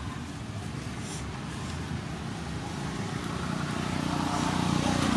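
A motor vehicle's engine running with a low rumble, growing steadily louder over the last two seconds.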